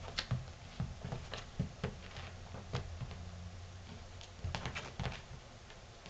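Two Siamese kittens scuffling, their paws pattering and thudding irregularly on a hard floor.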